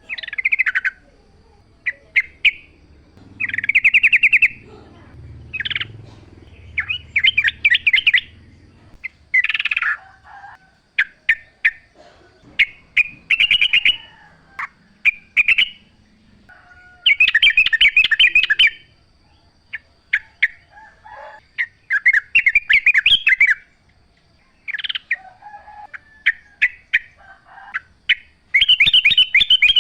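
Yellow-vented bulbuls (trucukan) singing: loud, short, bubbly chattering phrases that come every second or two, with quick single notes between them.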